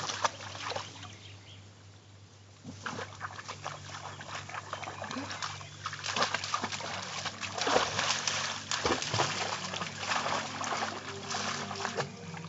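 An English Setter splashing and sloshing as it wades through a shallow garden pond and its reeds, hunting for frogs. The splashing is irregular, drops away briefly a little over a second in, then picks up again.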